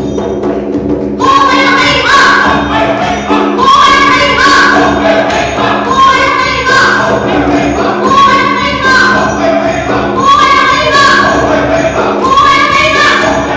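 Music for a Manipuri folk dance: a group of voices singing in unison over a steady drone, with a regular beat of bright struck percussion about twice a second. The singing comes in about a second in.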